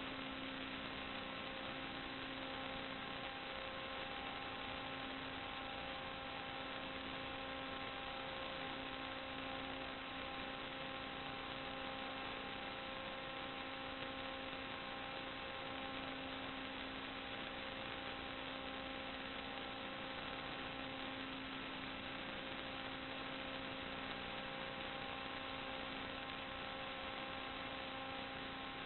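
Steady electrical hum with a layer of hiss, unchanging throughout: a constant buzzing tone with its overtones over even noise, with no other sound.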